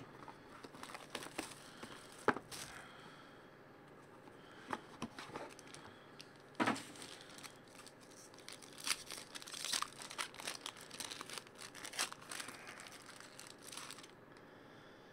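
Plastic shrink wrap crinkling and tearing as it is stripped off a sealed trading-card box, then a foil card wrapper crinkling as it is pulled open near the end. Scattered sharp crackles and rustles, with a few louder snaps.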